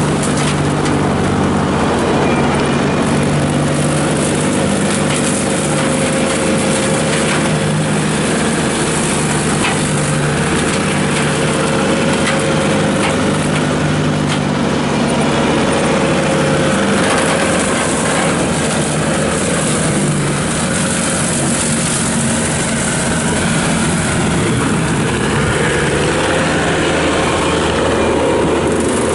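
Bobcat T770 track loader's diesel engine running hard, driving a 72-inch hydraulic skid steer brush cutter with a Star piston motor as it mows and mulches brush, with scattered brief knocks.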